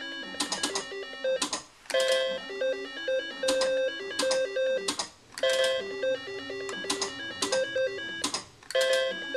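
Three-reel slot machine being spun over and over: each spin plays a short electronic beeping tune while the reels turn, then a quick run of mechanical clunks as the reels stop. The cycle repeats about every three and a half seconds, three times over. These are losing spins with no payout sound.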